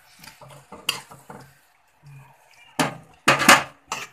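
Spatula scraping and clattering against a metal kadhai while stirring minced meat frying in oil, in short irregular strokes, with several much louder scrapes near the end.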